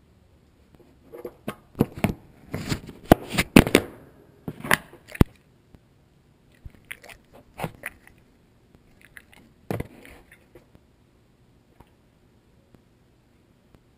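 A foxhound mouthing and chewing on a GoPro camera, its teeth knocking and scraping on the camera right at the microphone. A dense run of sharp knocks comes a second or so in and lasts several seconds, then scattered knocks follow every second or two.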